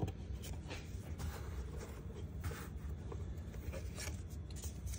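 Several short rustles and scrapes of hands handling cardboard trading-card boxes and cards on a tabletop.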